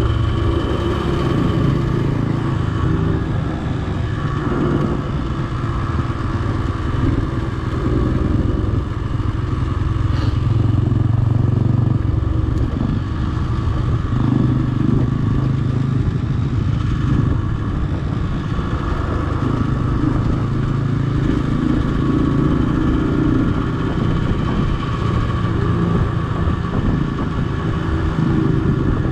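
Trail motorcycle engine running at low road speed, its pitch and loudness rising and falling gently with the throttle.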